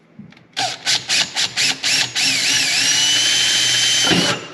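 Power drill turning a 1.5-inch hole saw with a centre pilot bit, cutting a hole in a side-by-side's console panel. It starts with about half a dozen short trigger bursts, then runs continuously for about two seconds with a whine that wavers, then holds steady, and cuts off suddenly near the end.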